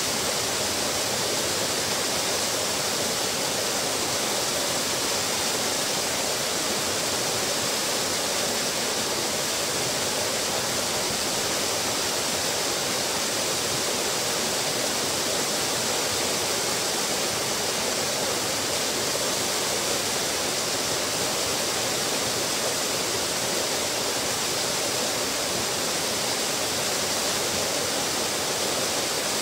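Small waterfall pouring over a stone wall and splashing into the pool below: a steady rush of falling water.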